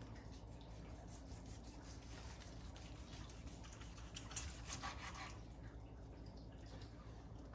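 Knife slicing through a roast pork joint on a cutting board: faint scraping and small clicks, with a louder stretch of cutting about four seconds in that lasts about a second.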